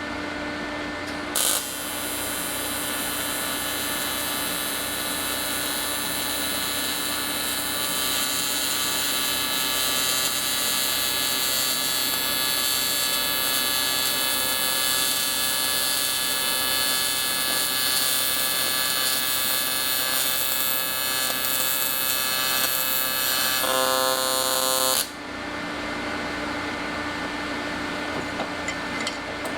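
AC TIG welding arc on aluminum: the arc strikes with a sharp crack about a second and a half in, then buzzes and hisses steadily for over twenty seconds and cuts off suddenly. The welding machine's steady hum carries on before and after the arc, with a few clicks near the end.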